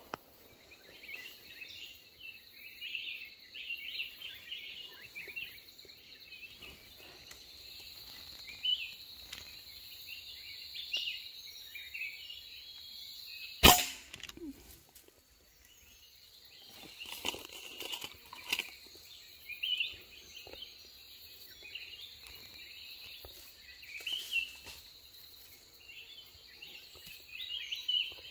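A single sharp rifle shot about halfway through, the loudest sound, over a steady high insect drone and scattered bird chirps; the drone fades for a moment just after the shot.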